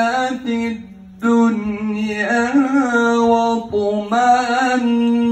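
A man reciting the Quran in the melodic tajwid style, drawing the syllables out into long held notes. He pauses for a breath about a second in, then sings a wavering, ornamented run before settling back into long steady notes.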